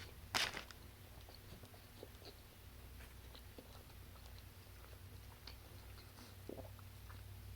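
A crisp crunch of a bite into a Popeyes fried chicken sandwich about half a second in, followed by faint chewing.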